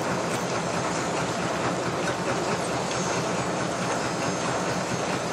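A train running, a steady loud noise with no pauses.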